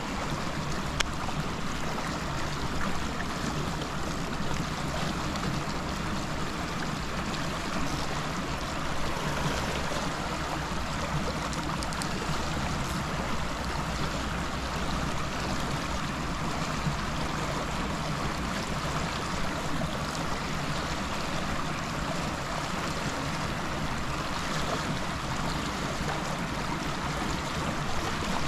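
Steady rushing of water pouring out of an outlet pipe into a river, churning at the surface.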